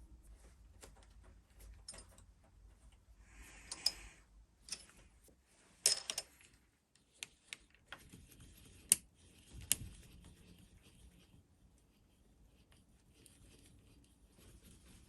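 Scattered light clicks and taps of small hard parts being handled, with a brief rustle about four seconds in.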